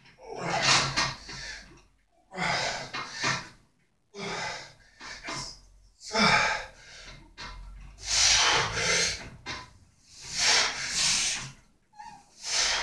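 A man's heavy effort breathing while bench pressing a barbell: a forceful exhale, sometimes with a gasp or grunt, about every two seconds, one with each rep.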